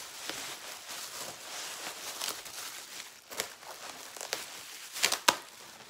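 Bubble wrap being handled and unwrapped by hand, crinkling and rustling, with a few sharp snaps about five seconds in.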